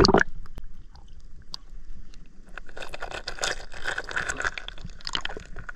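Scraping, crunching and clicking of shells and stones being handled and stepped on, with many small sharp clicks.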